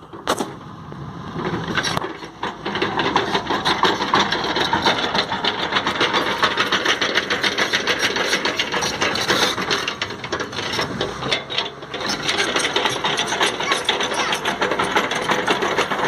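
Komatsu crawler excavator travelling, its steel tracks clattering in a fast, continuous run of clicks and clanks.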